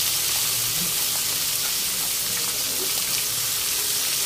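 Whole round scad (galunggong) frying in hot oil in a wok: a steady sizzle.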